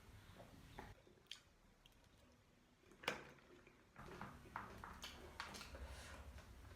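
Close-miked eating sounds: quiet chewing with scattered crisp crunches and wet clicks of the mouth. The sharpest crunch comes about three seconds in.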